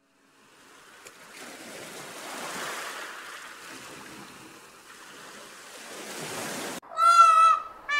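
Surf washing on a sandy beach, a steady hiss that swells and eases. Near the end a loud peacock call cuts in, two arched, nasal cries.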